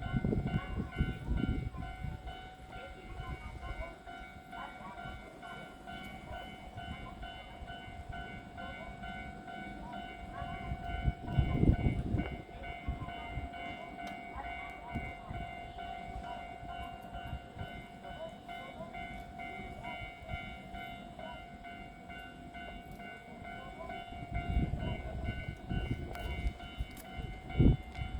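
Electric train at a station platform: a steady hum with several pitches runs throughout, with heavier low rumbles at the start, around the middle and near the end.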